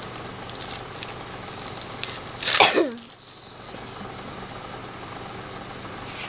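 One short vocal outburst from a child about two and a half seconds in, starting with a hiss and falling steeply in pitch, over a steady low hum.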